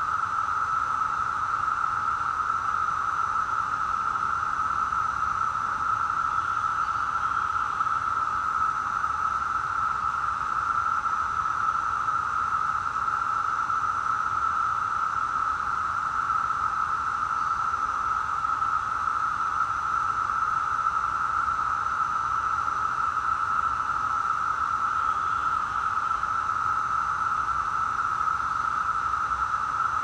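Chorus of Brood X periodical cicadas: a loud, steady drone that never breaks.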